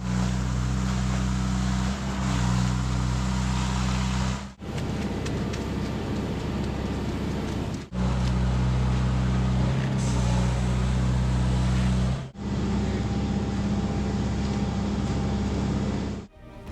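Diesel engine of a concrete truck running steadily at the pour, a constant low drone, with the sound cutting off and resuming abruptly three times.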